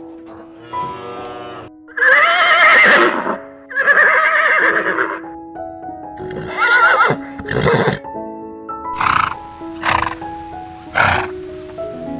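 Equine whinnying: two long wavering whinnies, then shorter calls about once a second, over background music.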